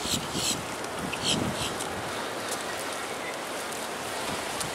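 Steady wind and ocean surf noise, with a few short high-pitched chirps in the first couple of seconds.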